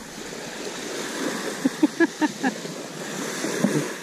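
Small waves washing onto a shingle beach. About two seconds in comes a quick run of five short pitched pulses.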